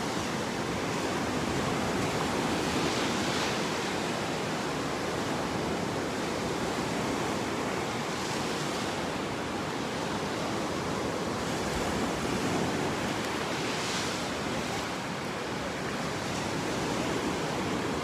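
Sea surf on a sandy beach: a steady rush of waves, swelling a little every few seconds as a wave breaks.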